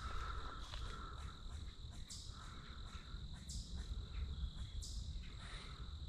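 Crickets chirping steadily in a woodland, with a few brief rustles of dry leaves.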